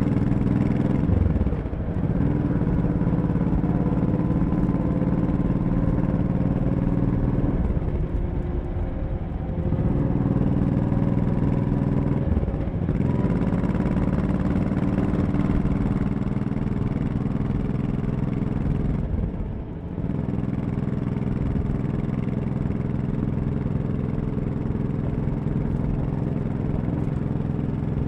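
Honda Shadow 1100's V-twin engine running while riding. Its note dips and picks back up about four times.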